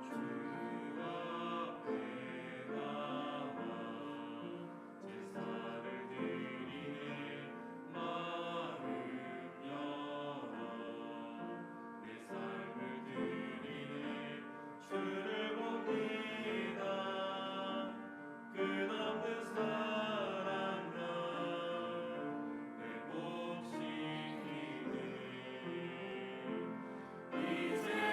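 A church choir singing a hymn in parts, with instrumental accompaniment.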